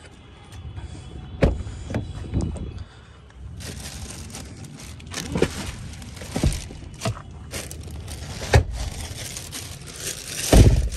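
Plastic seat covers rustling and crinkling while a car's front seat is handled and moved forward, with several knocks and clunks from the seat and cabin trim. The loudest is a heavy thump near the end.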